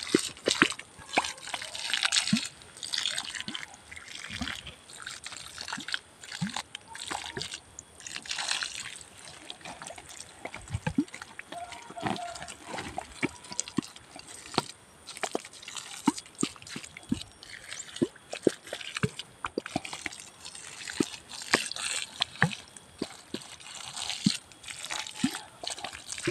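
Water from a hand-held hose pouring and splashing onto wet soil, with irregular spatters and drips.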